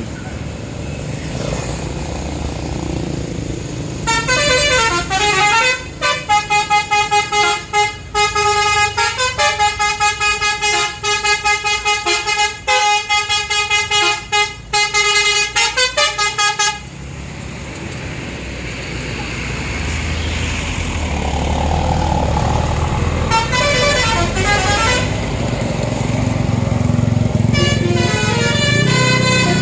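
A tour bus's telolet basuri musical horn plays a fast tune of many short, stepped notes for about ten seconds after a rising opening glide, then stops abruptly. A bus engine's noise then grows louder, and two more short horn runs sound near the end.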